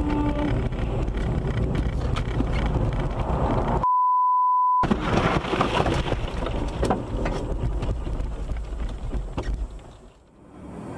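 Road and wind noise from a moving car picked up by a dashcam. About four seconds in, all sound cuts out for about a second under a single steady beep, a censor bleep. Near the end the noise drops away sharply.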